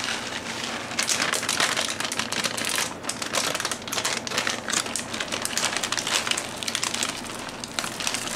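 Plastic bag of sunflower seeds crinkling as it is handled: a continuous dense crackle of many small clicks.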